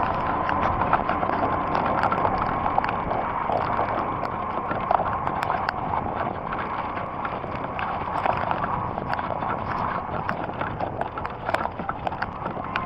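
Heavy rain falling, a dense steady hiss with many small drop impacts ticking on a hard surface close by.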